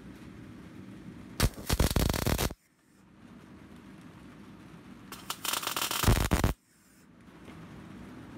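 MIG welder arc crackling on a steel horseshoe in two short welds of a little over a second each, each cut off suddenly. A low steady hum runs between them.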